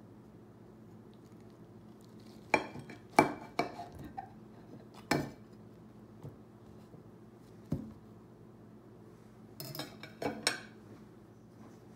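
Serving utensil clinking and knocking against ceramic dishes as a wedge of baked stuffed zapallito de tronco squash is lifted onto a plate: a string of sharp clinks in a few short clusters, loudest about three seconds in.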